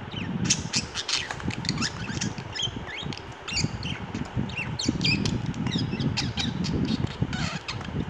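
Budgerigar chattering: a fast, unbroken run of short chirps, clicks and harsh squawky notes, many of them quick sliding whistles.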